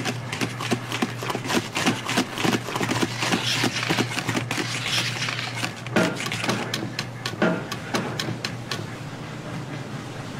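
A wire whisk clicks and scrapes against a stainless-steel bowl as batter is beaten, in rapid irregular strokes over a steady low hum.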